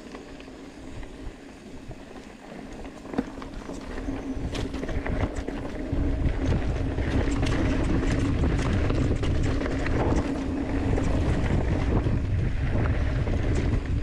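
Mountain bike riding down a dry dirt singletrack: wind rushing over the microphone and tyres crunching over dirt and rocks, with scattered clicks and rattles from the bike. It grows much louder about four to six seconds in as the bike picks up speed, over a steady low buzz.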